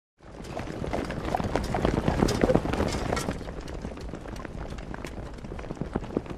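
Tramping footsteps of a column of soldiers marching, many boots striking the ground out of step. Loudest a couple of seconds in, then a little quieter.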